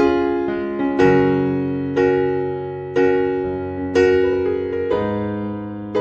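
Background music: slow keyboard chords in a piano sound, a new chord struck about once a second and each dying away before the next.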